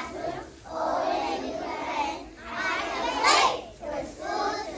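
A group of kindergarten children singing together in short phrases, with a louder, higher burst of voices about three seconds in.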